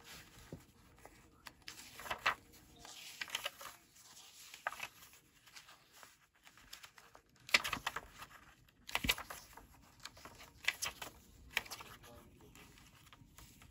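Paper pages of a handmade junk journal being turned and handled: irregular soft rustling swishes, with a few sharper flicks and taps, the loudest about halfway through.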